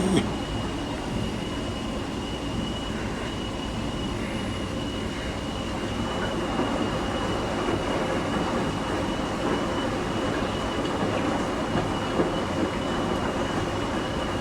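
Coin-laundry machine running with a steady mechanical rumble and a thin, steady high whine, with a couple of clicks at the very start.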